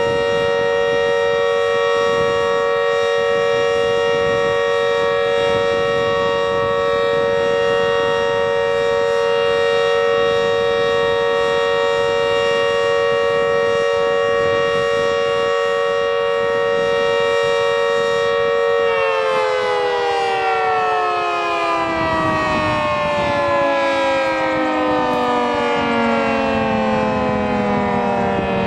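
Warning siren sounding a steady chord of several tones, then winding down about nineteen seconds in, its pitch sliding slowly and steadily lower.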